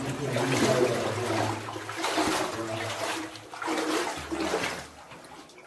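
People wading through shallow water in a flooded mine tunnel: uneven splashing and sloshing of legs moving through the water, dying down near the end.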